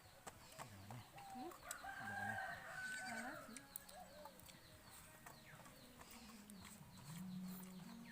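Chickens clucking, with a rooster crowing about two seconds in, and faint clicks.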